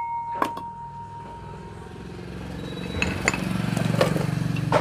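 A motor vehicle's engine running with a rapid pulsing beat, swelling to its loudest about four seconds in and easing after, as when it passes by. Over it, a few light clicks and clinks of ceiling-fan parts being handled, with a short ringing tone fading in the first two seconds.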